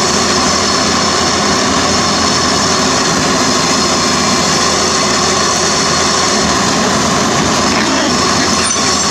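CAT 320D excavator's diesel engine running steadily under load, loud and close.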